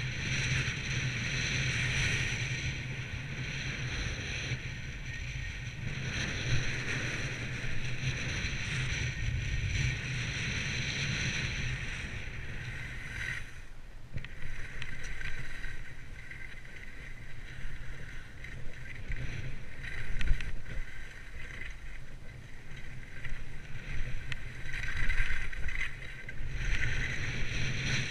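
Skis hissing and scraping over packed, tracked snow on a downhill run, with wind noise on the microphone. A few louder scrapes stand out in the second half.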